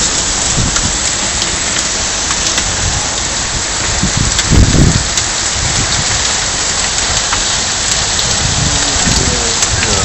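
Heavy rain pouring steadily in a storm, splashing onto standing water. A brief low rumble about halfway through is the loudest moment.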